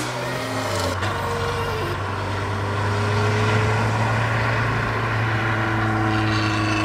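1992 Volkswagen Cabriolet's four-cylinder engine running under way, a steady drone whose pitch drifts slowly up and down as it pulls.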